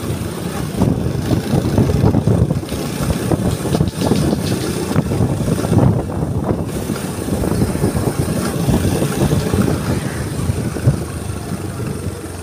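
Small motorcycle riding along a road, its engine running under heavy wind buffeting on the microphone.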